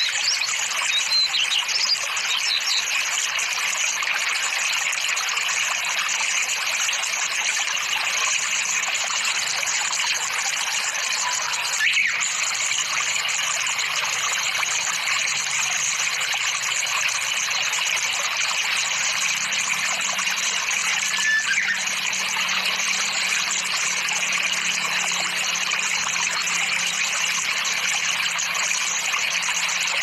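Steady rush of flowing water, with a few brief high bird chirps.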